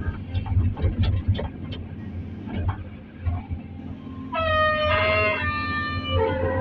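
A vehicle horn sounds for about a second, then a shorter, lower-pitched honk near the end, over a steady low engine hum and scattered clicks.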